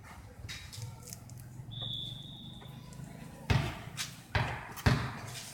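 Three heavy thumps in the second half, each about two-thirds of a second apart, over a low steady rumble, with a brief high beep-like tone shortly before.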